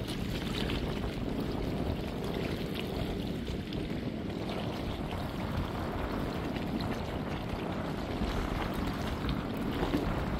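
Steady wind buffeting the microphone, with river water washing against the bank underneath.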